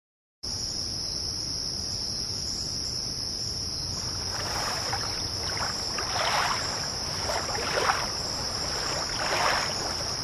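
Night ambience that begins suddenly about half a second in: crickets chirring in one steady high note, with water splashing or lapping in irregular strokes from about four seconds in.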